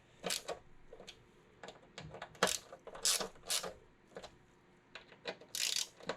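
Hand ratchet clicking in short, irregular strokes with light metal clinks, as the gas cap's hex bolts are snugged down one after another.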